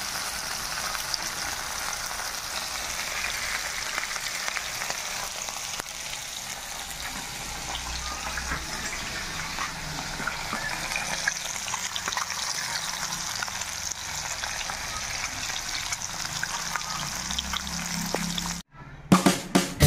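Rohu fish steaks shallow-frying in hot oil in an iron kadhai: a steady sizzle with fine crackling. Near the end the sound drops out briefly, followed by a few sharp clicks.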